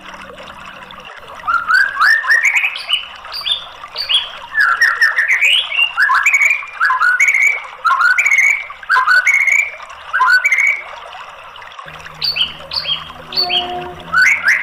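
White-rumped shama singing: phrases of quick, sharp whistled notes that slide up and down, repeated several times a second, with a short pause about two thirds of the way through.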